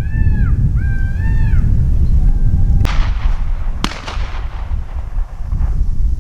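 Two distant shotgun shots about a second apart, each a sharp crack with a trailing echo, over steady wind rumble on the microphone. Just before them, in the first second and a half, an animal gives a quick series of four arched, whistle-like calls.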